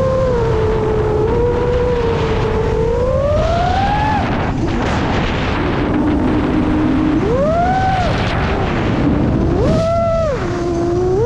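Seven-inch FPV quadcopter's four brushless motors (iFlight XING 2806.5, 1300 KV) with three-blade props, whining as heard from the onboard camera. The pitch follows the throttle: it climbs to a peak about four seconds in, drops low for a couple of seconds, then rises in two short punches near the end. Wind rumbles on the microphone underneath.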